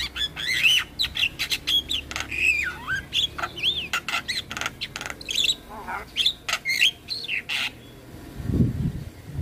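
Javan myna singing in full: a rapid, varied string of whistles that glide up and down, mixed with harsh clicks and squawks. Near the end there is a short lull, then a brief low rumble.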